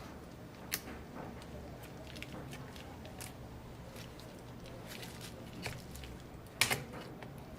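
Scattered small clicks and taps of tools and small parts being handled at a repair bench. One sharp click comes under a second in and a louder cluster comes near the end, over a low steady hum.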